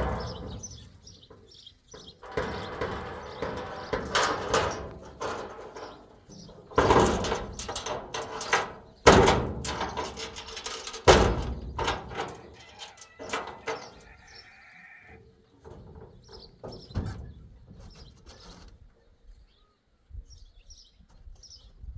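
Clanks, knocks and rattling of a pickup truck's sheet-metal bed and side rack as a person climbs onto it and moves about on it, with loud knocks right at the start and about 9 and 11 seconds in.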